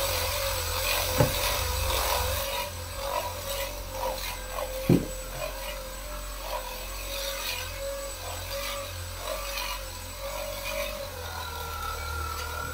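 Handheld electric scrubber running with a steady, slightly wavering whine, its fluffy pad rubbing over kitchen tiles. Two sharp knocks, about a second in and again about five seconds in.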